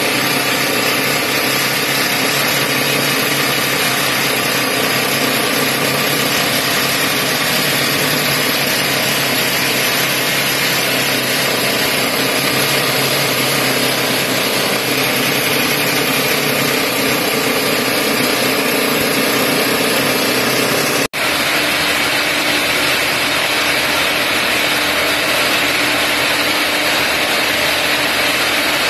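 Solomatic underground longhole drill rig running: a loud, steady mechanical din with a few constant tones held through it. It breaks off for an instant about two-thirds of the way through and then carries on.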